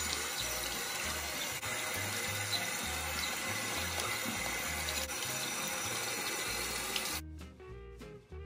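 Tap water running and splashing into a sink over a sealed plastic fish shipping bag as the bag is rinsed, with a steady hiss. Background music with a pulsing bass line plays underneath, and the water cuts off suddenly about seven seconds in, leaving only the music.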